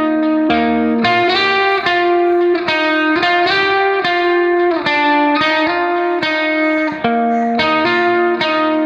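Background music: a guitar picking a melody of clear, ringing plucked notes in a repeating pattern.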